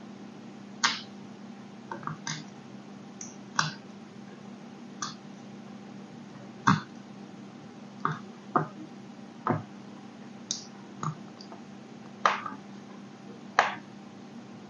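A thin blade slicing through a moulded block of kinetic sand, a short crisp crunch with each cut, about a dozen cuts at uneven intervals over a faint steady hum.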